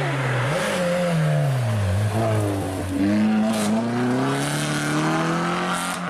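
Opel Corsa OPC rally car's turbocharged engine driven hard: a short blip about half a second in, the pitch falls as it slows, then rises steadily for about three seconds as it accelerates again.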